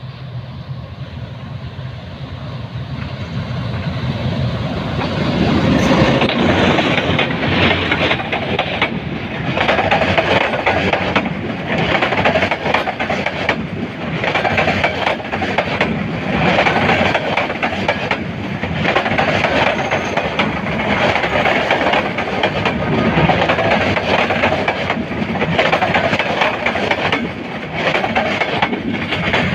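A metre-gauge passenger train approaching and passing close by. The sound builds over the first few seconds, then the coaches rumble past with a repeating clatter of wheels over the rail joints.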